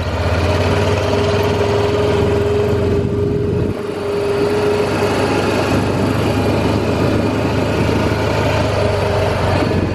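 Side-by-side utility vehicle's engine running steadily as it drives, with a steady whine over the engine hum from about half a second in to about five seconds in.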